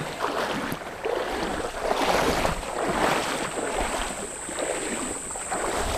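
Wading footsteps splashing through shallow creek water, in a rough stride of about one step a second.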